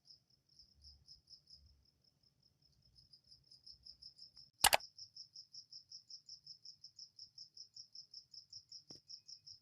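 A cricket chirping steadily in short high pulses, about four a second, with a sharp double click a little past halfway.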